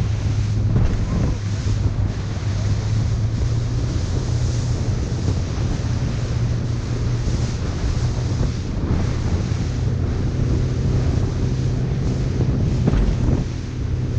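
Boat engine running steadily under heavy wind buffeting on the microphone, with the wash of sea water.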